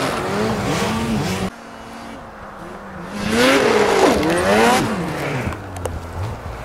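Snowmobile engines revving hard at speed, their pitch sliding up and down. The sound drops off abruptly about a second and a half in, then another sled comes close and passes with its engine loud, the pitch rising and then falling away.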